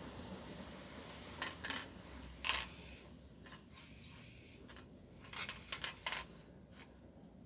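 Handheld aerosol spray can being handled, giving short metallic clicks and rattles: two or three about a second and a half in, then a quick cluster of four or five around five to six seconds in.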